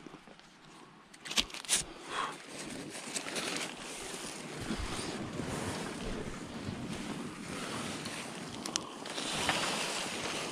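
Rustling and scuffing of a tarp and gear being handled close to the microphone, a steady rushing noise with a few sharp clicks about a second and a half in.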